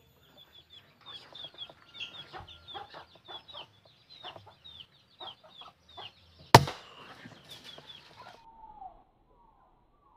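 A single sharp air-rifle shot about six and a half seconds in, the loudest sound, over a rapid run of short, high, downward-sliding animal calls, a few a second. Near the end lower, descending calls take over.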